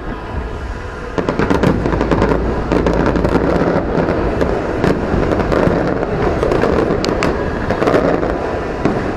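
Fireworks display: a dense, rapid run of shell bursts, booms and crackling, which gets louder about a second in and keeps going without a break.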